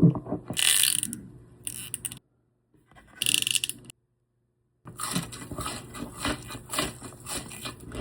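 Close-up eating sounds: wet, clicky chewing of fried chicken, with brief crinkly bursts early on and two abrupt drops to dead silence where the footage is cut.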